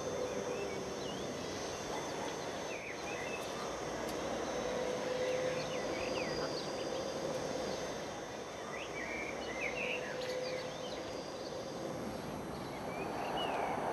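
Small birds chirping in short, scattered calls over a steady background hum.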